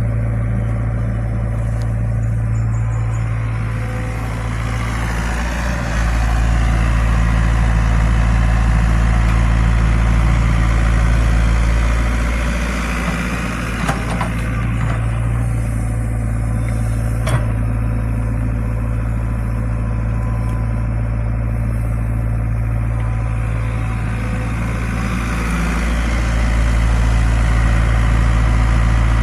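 Excavator's diesel engine running steadily with a deep hum, pulling harder about six seconds in and again near the end. A single sharp knock comes around the middle.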